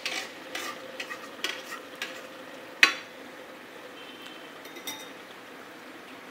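A few light clinks and knocks of a rice cooker's metal inner pot being handled, the sharpest a little before three seconds in, then a few faint clinks.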